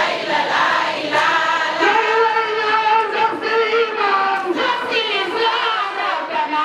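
Voices singing a devotional chant of tawhid, the praise of God's oneness, in long held notes that waver and bend.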